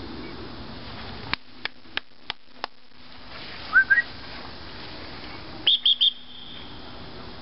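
Short high whistled notes: two quick rising chirps a little after midway, then three fast high pips in a row, loud against a light outdoor background. Before them comes a run of five faint evenly spaced clicks.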